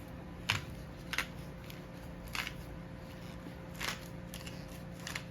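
Himalayan salt being applied to raw steak and lamb chops: about four short scratchy strokes, irregularly spaced.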